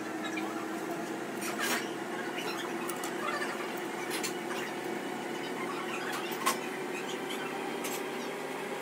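Soft rustling of sliced onions and a few light clicks and taps as gloved hands scatter lemon slices over raw beef in a stainless steel tray, with one sharper tick past the middle. A steady hum runs underneath.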